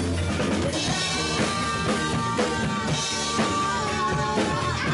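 Live rock band playing an instrumental passage on drum kit, electric bass and electric guitar. One high note is held for about four seconds, then bent up and back down near the end.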